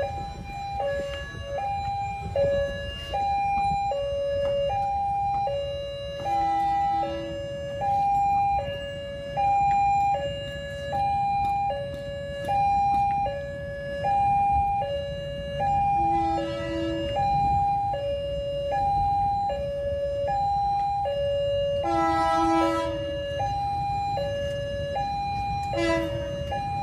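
Railway level-crossing warning alarm sounding two steady tones, high then low, each held just under a second and repeating without a break while a train approaches. A low road-traffic rumble runs underneath, and four short horn blasts come at intervals.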